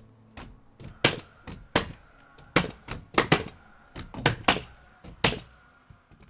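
Irregular sharp knocks of roofers nailing timber boards onto the roof rafters, about fifteen strikes, some coming in quick pairs.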